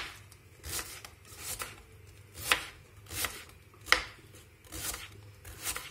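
A knife slicing red cabbage into long strips: about eight separate cuts at an even pace, each a sharp knock.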